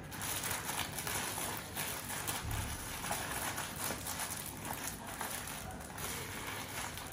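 A cloth rubbing and wiping over a packaged grocery item, with soft rustling and small scattered taps from the package being handled.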